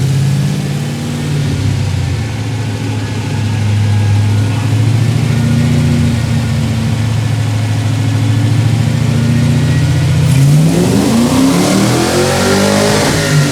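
Fox Body Mustang's V8 running on a chassis dyno, holding a steady low speed, then from about ten seconds in revving up with a steadily rising pitch as a dyno pull begins.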